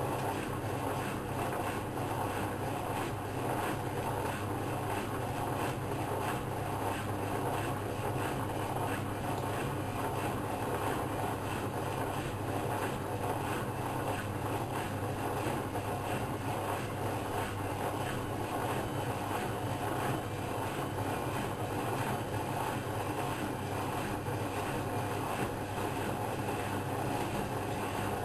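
Whirlpool Expert 1000 front-loading washing machine running: a steady, even motor hum.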